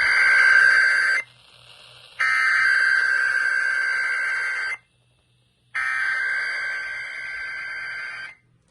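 Emergency Alert System SAME header bursts: a warbling two-tone data screech sent three times. The first burst ends about a second in, then two more follow, each about two and a half seconds long with about a second's pause between them. They carry the digital header of an EAS Required Weekly Test.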